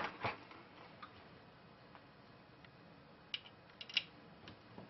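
Light clicks and taps of hand work fitting T27 Torx screws to a hedge trimmer's muffler. There are two clicks at the start and a small cluster of clicks about three and a half to four seconds in.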